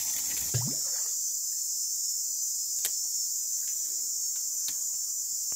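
Steady, unbroken high-pitched chorus of insects in the surrounding forest, with a few short sharp clicks and a brief low grunt about half a second in.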